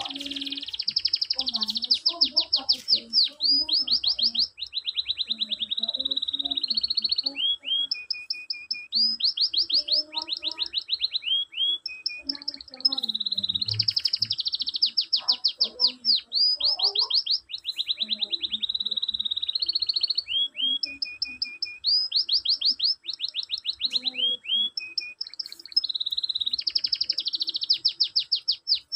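Canary singing a long song made of rapid trills, each a fast run of repeated short notes, switching to a new trill every second or two with only brief pauses.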